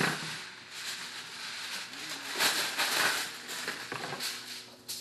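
Aluminum foil crinkling and rustling as a sheet is pulled off the roll and spread out on a countertop, with a short sharp crackle near the end.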